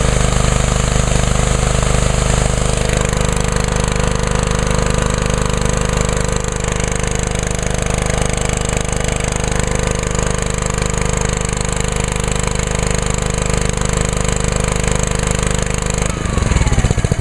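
Honda GCV190 engine on a Ryobi gas pressure washer running at full throttle under load, with the hiss of the water jet from the spray wand. About sixteen seconds in the trigger is released: the spray stops and the engine note changes as the idle-down feature lets it drop toward idle.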